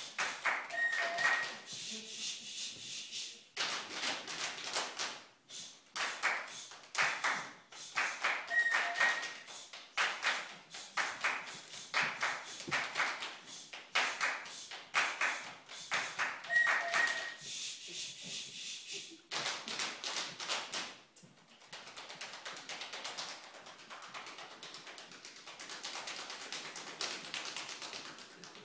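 Drum band playing body percussion without instruments: rhythmic hand claps and slaps in a repeating pattern, with a short high note three times, about eight seconds apart. About twenty seconds in the strokes give way to a quieter, even patter.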